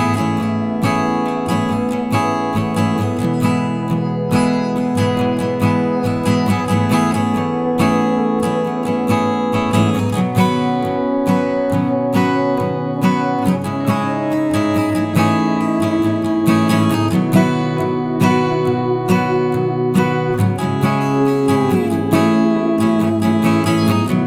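Background music led by acoustic guitar, strummed and plucked at a steady pace.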